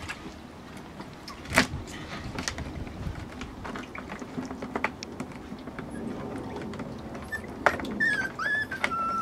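Puppies scrambling in an empty plastic paddling pool: scattered clicks and knocks of paws and claws on the plastic, with a loud bump about a second and a half in and another near the end. In the last second or so a puppy whimpers in short, high, wavering whines.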